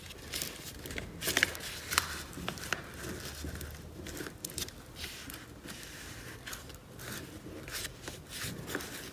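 A sheet of paper being folded by hand into a paper aeroplane, its creases pressed and smoothed flat against a wooden tabletop: irregular crinkling and scraping rustles.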